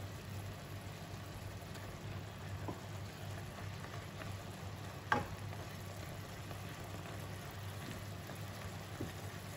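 Thinly sliced beef simmering and sizzling softly in soy sauce and its own juices in a nonstick wok, stirred with a wooden spatula, with a sharp knock of the spatula on the pan about five seconds in.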